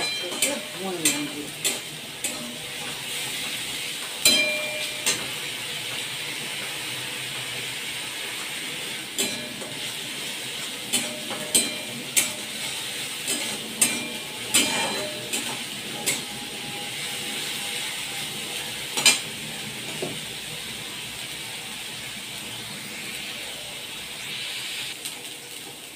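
Onion paste sizzling in hot oil in a metal kadai as a spatula stirs it, knocking and scraping against the pan at irregular intervals. Near the end the stirring stops, leaving only the sizzle.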